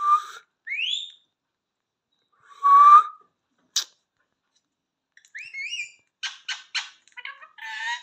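Rose-ringed parakeet giving a string of short whistles and squeaky calls, one a quick rising whistle, with a sharp click near the middle and three quick sharp chirps near the end.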